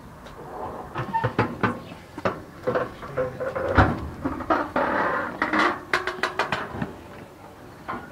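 Irregular knocks and clanks from children playing on metal playground equipment, thickest through the middle seconds.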